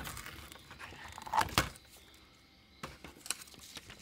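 Paper being peeled by hand off a sticky cutting mat, rustling, with two louder crackles about a second and a half in, then a few soft clicks.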